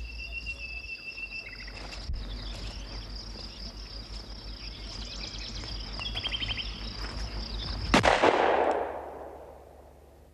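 Insects chirping steadily in woodland, with a few short chirp trills. About eight seconds in, a single loud gunshot rings out, echoes and fades away over about two seconds.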